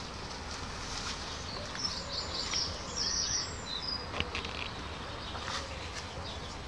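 Outdoor garden ambience with birds chirping on and off, short high calls bunched together a couple of seconds in, over steady background noise. A single sharp click a little after four seconds in.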